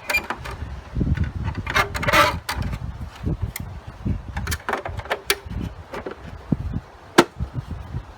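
Irregular clicks, knocks and rattles of hard plastic upright-vacuum parts being handled and fitted together, with a sharp click about seven seconds in.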